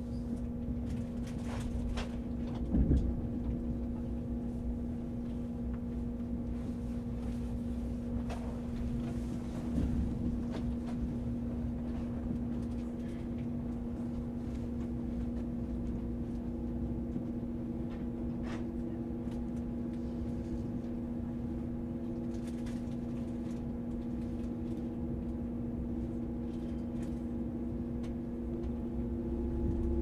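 Cabin ambience of an ICE high-speed train running at slow speed: a steady low rumble under a constant hum, with a few faint clicks and a louder knock about three seconds in.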